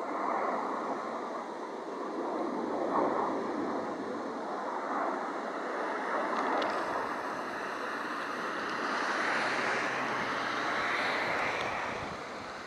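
Distant jet noise from a formation of CT-114 Tutor jets: a steady rushing roar that grows brighter and stronger from about halfway through, easing off near the end.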